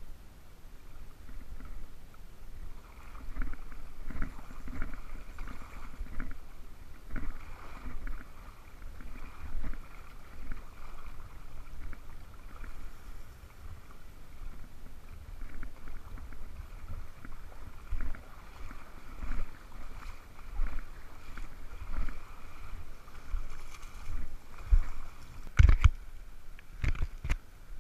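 Water sloshing and splashing close to the camera, irregular and continuous. Near the end, a few sharp knocks as a finger handles the camera housing.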